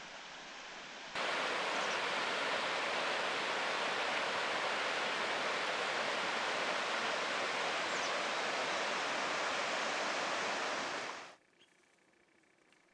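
Waterfall in a rocky ravine rushing, a steady even hiss that starts abruptly about a second in and fades out near the end, leaving near silence.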